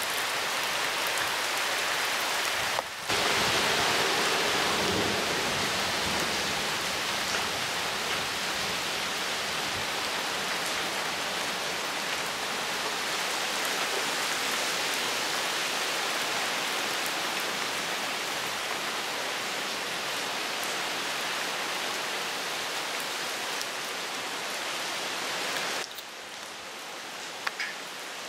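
Heavy rain pouring onto paving stones and garden foliage, a dense, steady hiss of falling and splashing drops. It cuts out for a moment about three seconds in and grows quieter near the end.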